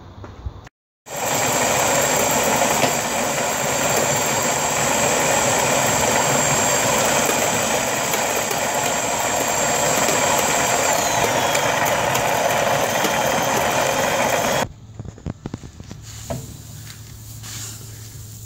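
Cordless drill driving a roller malt mill, crushing malted barley: a steady high motor whine over the grinding of the grain, the whine dropping in pitch about eleven seconds in before the sound cuts off suddenly. Afterwards, soft rustling of crushed malt being handled.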